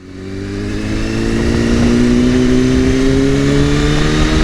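Vehicle engine under acceleration in one gear, its note rising slowly and steadily as the revs build.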